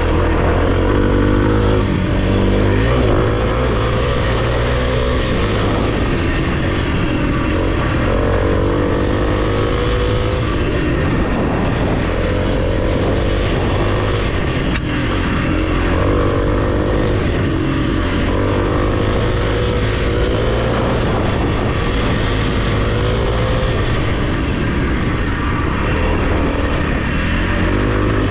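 Kawasaki KLX300's single-cylinder four-stroke engine running under way on dirt single track, its pitch rising and falling again and again every few seconds as the throttle opens and closes through the turns.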